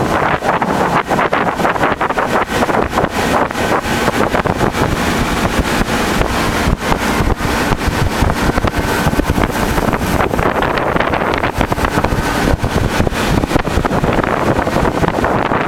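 Wind buffeting the microphone on a speeding motorboat in rapid, irregular gusts, over the steady drone of the boat's motor.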